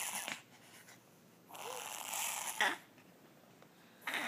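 A Maltese dog reverse sneezing: noisy, snore-like gasping inhalations in spells about a second long. One spell ends just after the start, another comes about a second and a half in, and a third begins near the end. The vet put the reverse sneezing down to allergies.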